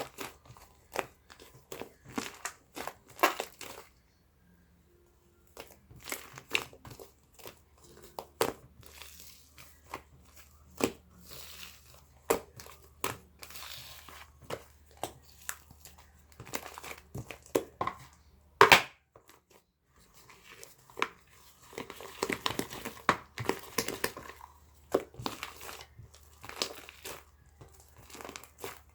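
Irregular crinkling and crumpling of handled material, a dense run of sharp crackles, with short pauses about four seconds in and again just before twenty seconds and one loud crack just before them.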